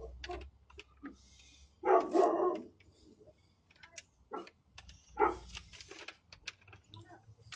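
A dog barking in short bursts, the loudest pair about two seconds in and another near five seconds, through a doorbell camera's microphone.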